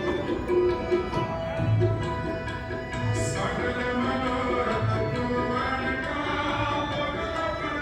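Sikh gurbani kirtan: singing over tabla and long held instrumental notes, with a deep tabla stroke about every second and a half.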